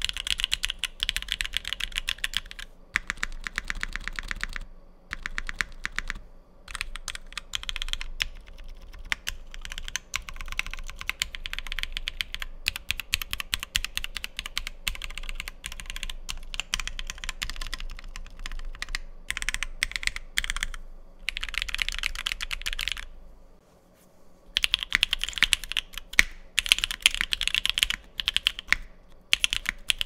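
Typemaster 180 mechanical keyboard with a POM plate, lubed and filmed Alpaca V2 linear switches and Durock V2 stabilizers, being typed on in runs of rapid keystrokes. There are a few short pauses, and the typing is fastest and loudest near the end.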